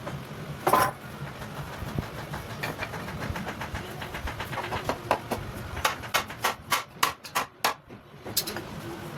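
Hammer blows on wood: one loud strike about a second in, then a run of quick strikes, about four a second, that grow louder toward the end, over a steady low hum.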